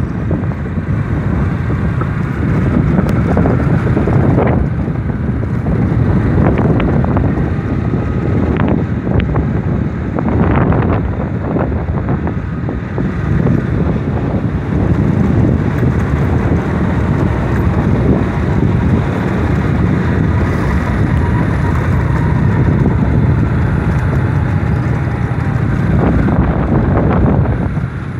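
Wind buffeting the microphone on a moving motorbike, with the small engine running steadily underneath.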